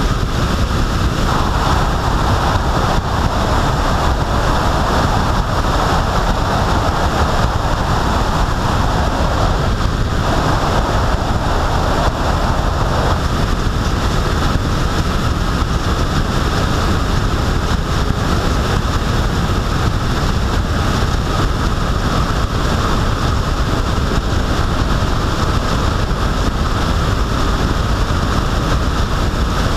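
Steady rush of wind over the microphone together with tyre and road noise from a vehicle driving along a sealed road at speed.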